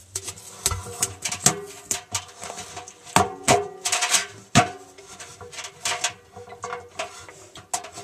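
Handling noise of a camera being fixed with sticky tape to the inside of a stainless steel washing-machine drum: irregular clicks, knocks and taps, with a few short scratchy stretches.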